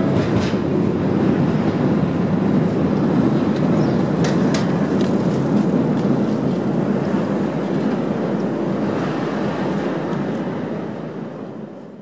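Yokohama Minatomirai Railway Y500 series electric train running past on the rails: a steady rumble of wheels and track. There are a few sharp clicks about four and a half seconds in, and the sound fades out near the end.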